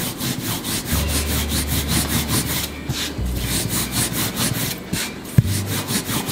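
Wooden rolling pin rolling out floured dough on a wooden board: quick, regular back-and-forth rasping strokes, with one sharp knock about five seconds in.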